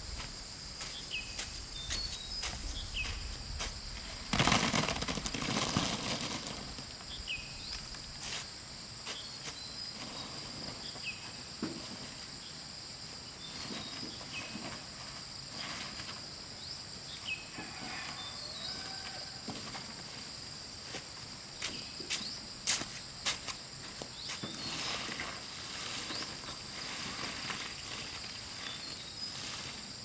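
Steady high insect chirring, with scattered rustles, light clicks and knocks, and a louder rustle about four seconds in.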